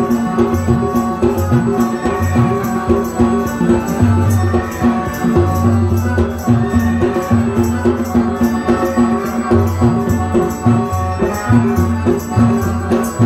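Live Sri Lankan folk dance music: drums keep a steady rhythm under sustained keyboard notes, with jingling, rattling percussion on top.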